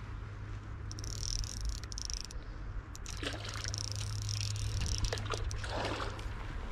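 A hooked trout thrashing and splashing at the surface of a creek, the biggest splash near the end. Rapid ticking in two stretches, in the first half and around the middle, fits a fly reel's drag giving line.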